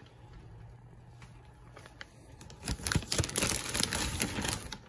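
Quiet room tone with a faint low hum, then from about halfway through a loud run of crinkling and rustling as plastic-wrapped grocery packaging is handled.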